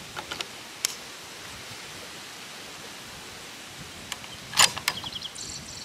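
Light clicks from handling and loading the Savage Axis II .243 bolt-action rifle, then one much louder sharp crack about four and a half seconds in, over a steady hiss of wind.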